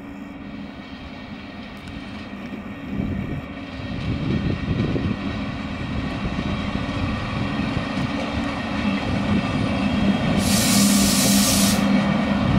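CFR class 477 electric locomotive passing close by, its rumble and steady low hum growing louder as it approaches, with a loud hiss of air lasting about a second near the end.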